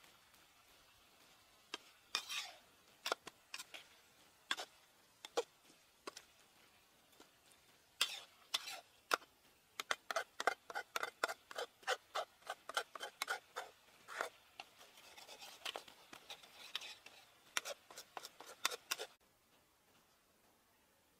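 Metal spatula scraping and clinking against a metal wok as frog pieces and leaves are stir-fried. The strokes are scattered at first, then come quickly, about four a second, before stopping a couple of seconds before the end.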